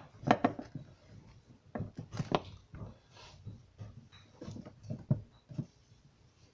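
Irregular knocks and taps of plastic Play-Doh tools and a toy rolling pin against a tabletop as the dough is rolled and shaped.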